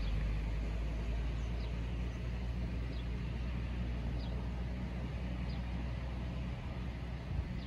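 Steady outdoor background rumble and hiss, with a faint short high chirp repeating five times, about every second and a quarter, a small bird calling.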